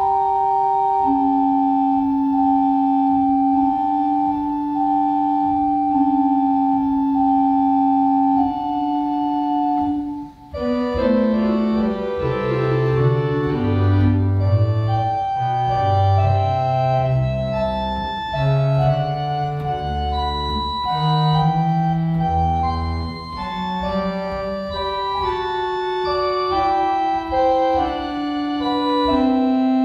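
Church organ played from a two-manual console. Slow held chords with a sustained upper melody for about ten seconds, a brief break, then fuller, busier music with deep bass notes joining in.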